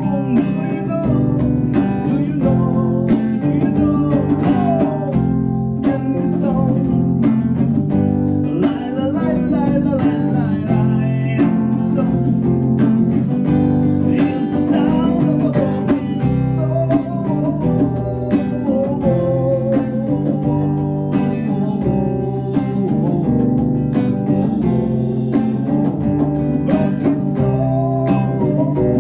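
Live band of guitar, bass guitar and drums playing a song, with the guitar carrying the melody over a steady beat.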